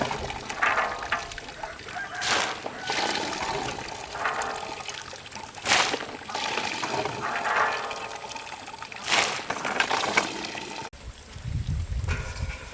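Water splashing and pouring in repeated strokes, a loud splash about every three and a half seconds with rustling and sloshing between. The sound cuts off near the end and gives way to a low rumble.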